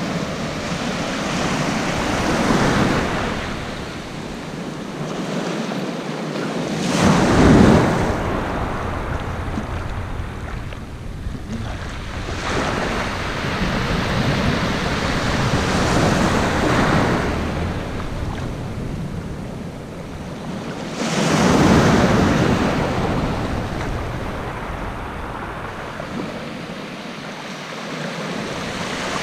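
Small ocean waves breaking and washing up a sandy beach, the surf swelling and fading every few seconds, loudest about seven seconds in and again about twenty-one seconds in. Wind rumbles on the microphone.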